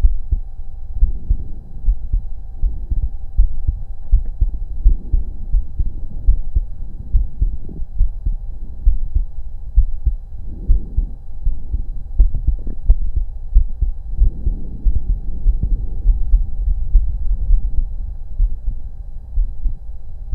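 A human heartbeat heard through a stethoscope on the chest: a continuous run of low, dull thuds, with a faint steady hum above it.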